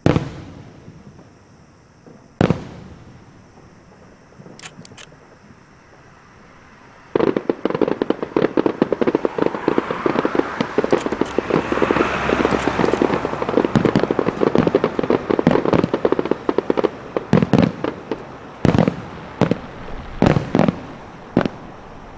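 Aerial fireworks show: single shell bursts with sharp bangs at the start and about two and a half seconds in, then from about seven seconds in a dense barrage of rapid crackling pops, with heavier booms coming through near the end.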